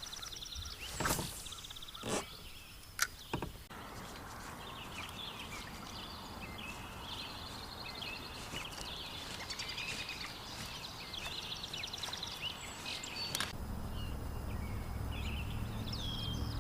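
Wild birds calling and singing around a lake at dawn, a continuous run of chirps. A few sharp knocks come in the first few seconds, and a low steady hum begins near the end.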